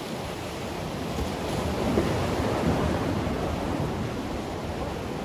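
Sea surf washing against the rocks and concrete blocks of a breakwater, with wind buffeting the microphone. The surf swells louder about two seconds in.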